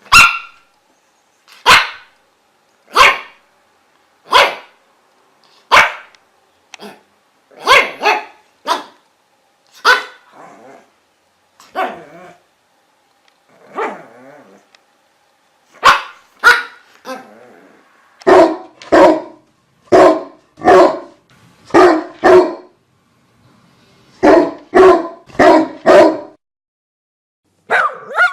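A dog barking in short, separate barks, one about every second and a half at first. In the second half the barks come faster, in runs of two or three.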